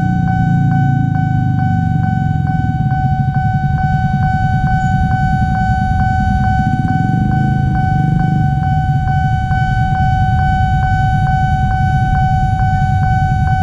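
Railway level-crossing warning bell ringing continuously, a steady electronic ding repeating about twice a second, over the low running of motorcycle and car engines passing close by.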